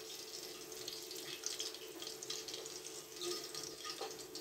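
Green chillies sizzling and crackling in hot oil in a metal pot as they are fried and lifted out.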